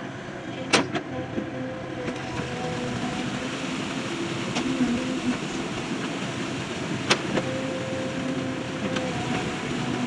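JCB excavator running and working, a steady engine and hydraulic drone with tones that come and go. A few sharp knocks, the loudest about a second in and about seven seconds in.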